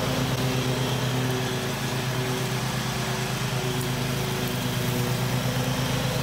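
Toro zero-turn riding mower's engine running steadily as the mower cuts grass.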